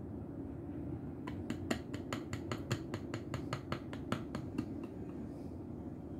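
Plastic bottle of fabric paint clicking against a metal jar lid as paint is squeezed out: a quick run of small sharp clicks, about six a second, starting about a second in and stopping near the five-second mark, over a steady low hum.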